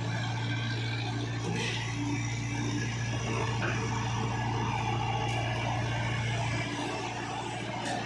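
Diesel engine of a Tata Hitachi EX70 excavator working under hydraulic load as it lifts a loaded bucket and swings it over a trolley, with a steady low hum that eases about seven seconds in. A few light knocks sound along with it.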